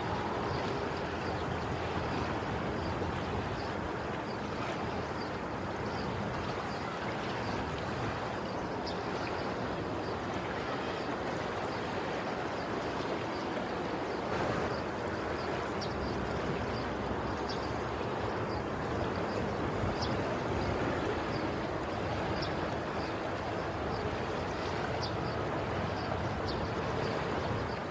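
Sea waves washing steadily on the shore, an even rushing noise with faint high ticks scattered through it.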